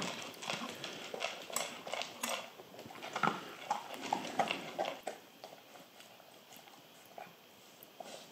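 Dog eating from a ceramic bowl: quick, irregular clicks of chewing and of the bowl, busy for about the first five seconds, then thinning to a few scattered clicks.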